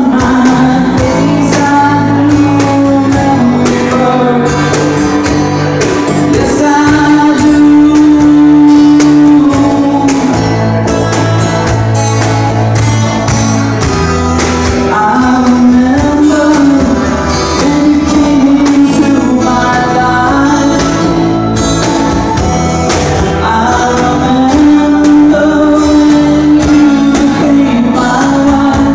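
A live band playing a song: a man singing lead over strummed acoustic guitar, electric bass and a Korg Krome keyboard, with light percussion ticks keeping time.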